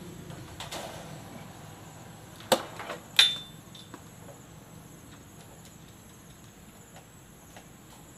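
Stand fan being taken apart by hand: two sharp clicks as the wire front grille is unclipped and taken off, the second louder and ringing briefly like metal, then faint ticks as the blade's centre cap is handled.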